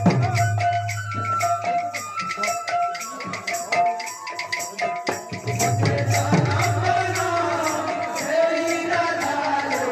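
Live kirtan music: sharp metallic percussion strokes in a steady beat of about three a second, with a deep drum coming in near the start and again about halfway through, over held melodic tones.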